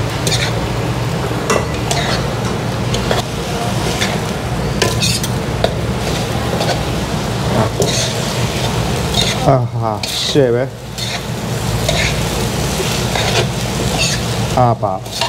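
Vermicelli noodles and vegetables being stir-fried in a wok: steady sizzling, with utensils scraping and clattering against the pan as the noodles are tossed. A couple of brief wavering squeaks come about ten seconds in and again near the end.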